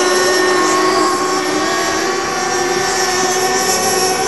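Engines of radio-controlled racing power boats running flat out on the water, a steady high-pitched whine made of several held tones.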